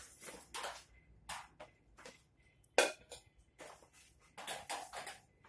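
Metal pots knocking and clattering as they are handled and set down on the floor, a series of short clanks with one louder clank about three seconds in.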